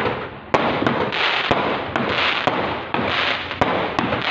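Fireworks going off in quick succession: about seven sharp bangs with a dense crackling hiss between them.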